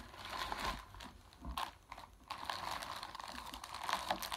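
Clear plastic wrapping around a large ball of yarn crinkling and rustling as the ball is handled, with a quieter stretch in the middle.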